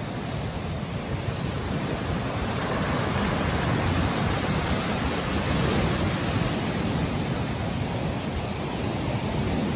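Ocean surf breaking and washing over a rocky, pebbly shore: a steady rush of churning water that swells a little about three seconds in.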